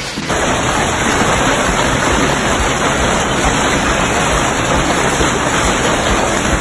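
Heavy rain pouring down in a steady, loud hiss that cuts in sharply just after the start.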